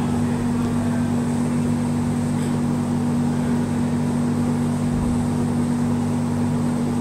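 Fan running with a steady, unchanging low hum over a wash of air noise.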